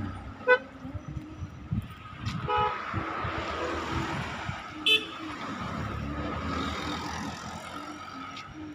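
Three short car-horn toots, about half a second, two and a half and five seconds in, as a car drives past with a rush of engine and tyre noise that swells in the middle and fades toward the end.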